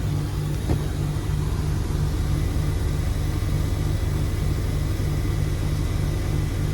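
Carrier 25VNA Infinity variable-speed heat pump outdoor unit running: a steady low hum from the inverter compressor and condenser fan, with an even throb a few times a second.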